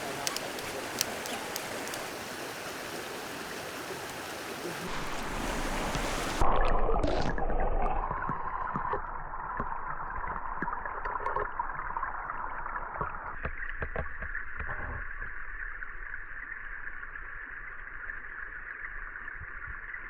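Small mountain creek running over rocks, with a few sharp handling clicks. About six seconds in the microphone plunges under the surface with a splash, and the water turns to a muffled, dull rushing and gurgling heard from underwater.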